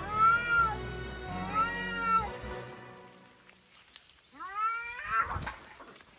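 A cat meowing three times: two arched meows close together, then a third, rising meow a couple of seconds later, over background music that fades out.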